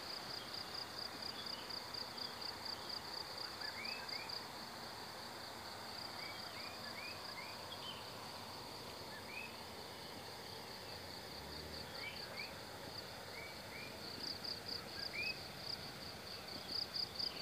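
Insects trilling: a high, rapid, evenly pulsed chirring, strongest at first and again in the last few seconds, weaker in between. Short rising chirps are scattered through it over a faint outdoor hiss.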